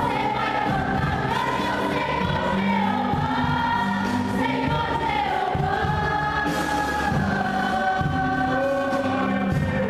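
A gospel vocal group singing a praise song with full band accompaniment: held choral notes over bass and drums.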